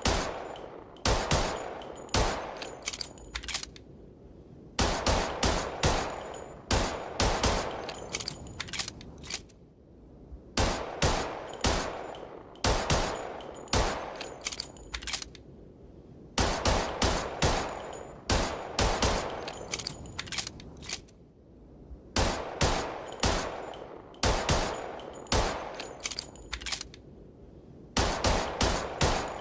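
Colt M1911 .45 ACP pistol firing in quick strings of several shots, each sharp report trailing off in an echo, with short pauses between strings.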